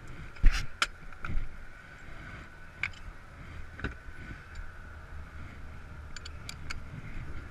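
Scattered metal clinks and knocks of a lug wrench and socket working at rusted lug nuts on a car wheel, the loudest about half a second in. A steady hum runs underneath.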